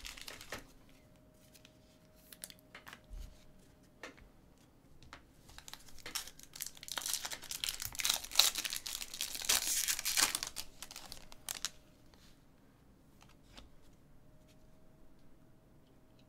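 Foil wrapper of a 2019 Bowman Sterling baseball card pack crinkling and tearing open, loudest from about five to eleven seconds in. Before and after, light clicks and taps of the cards being handled.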